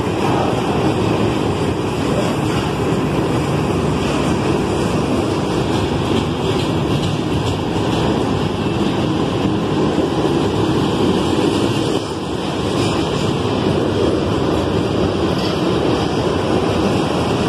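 Loaded hopper wagons of a freight train rolling past close by: a loud, steady rumble of steel wheels on the rails.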